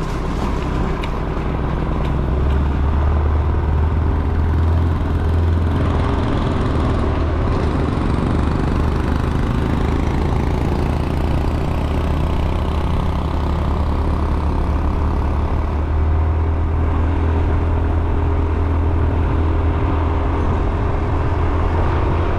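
Motor vehicle engine running steadily while driving, a continuous low drone under road noise.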